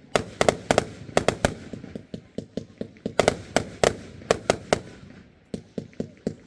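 Fireworks display going off: rapid, irregular bangs of bursting fireworks, several a second, thinning to fainter pops about five seconds in.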